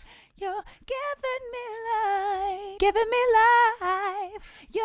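Unaccompanied female lead vocal, sung with vibrato on held notes, playing through Logic Pro X's Studio VCA compressor at a gentle 2.2:1 ratio with a very fast attack.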